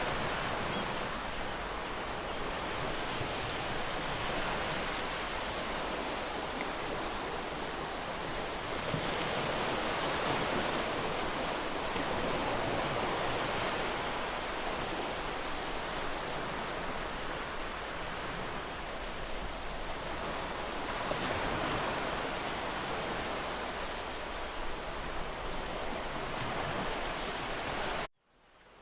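Waterfall rushing in a steady, dense roar of falling water. Near the end the sound cuts out abruptly and then fades back in.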